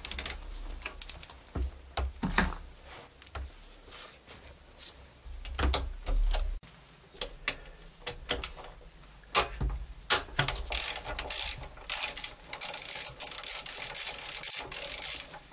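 Hand ratchet clicking as it backs out the bolts of an automatic transmission's oil pan: short, irregular runs of clicks at first, then a fast, steady run of clicks over the last five seconds or so.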